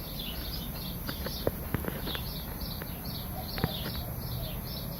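Outdoor background with a bird chirping repeatedly in short high notes, about three or four a second, and a few sharp clicks near the microphone.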